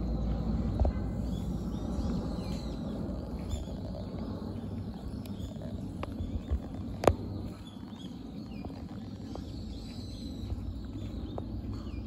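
Outdoor ambience: a steady low rumble with faint bird chirps, and a few sharp clicks, the loudest about seven seconds in.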